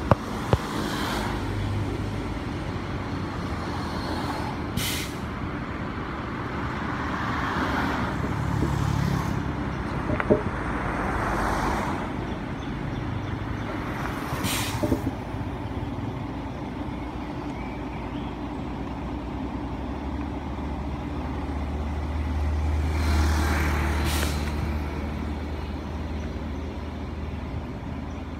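Hyundai sleeper coach's diesel engine idling, broken by several short hisses of compressed air from its air-brake system. The engine's low hum swells for a few seconds about three-quarters of the way through.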